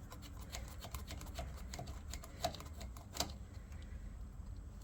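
Light, irregular clicks and taps of small metal parts and tools being handled, with two slightly louder clicks a little past the middle.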